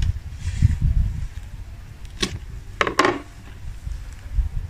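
Kitchen knife cutting through raw quail on a wooden cutting board: a sharp knock of the blade on the wood a little past two seconds in, then a short cluster of knocks and cutting noise around three seconds, over a low rumble.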